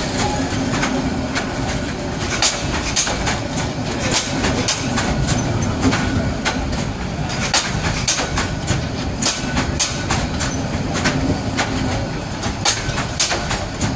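Bangladesh Railway passenger train's coaches rolling past on the adjacent track, wheels clicking over the rail joints many times over a continuous rumble and a low hum.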